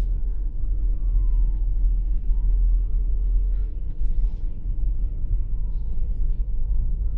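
Steady low rumble of a car driving slowly, heard from inside its cabin: engine and road noise.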